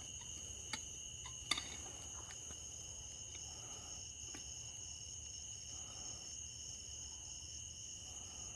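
Steady high chirring of crickets in a night-time insect chorus, with a few sharp clicks, the loudest about a second and a half in.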